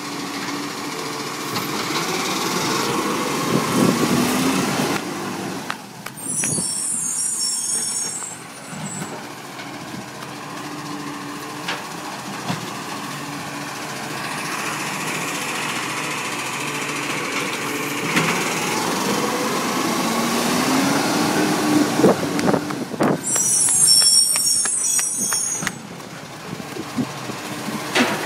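Side-loading garbage truck running, its engine revving up and settling back twice as the hydraulic bin arm works, each time followed by a loud sharp air-brake hiss. A few knocks from the bin and arm are heard between.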